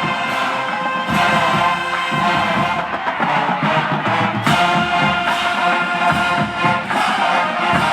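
Band music with brass horns holding sustained notes over a pulsing drum beat.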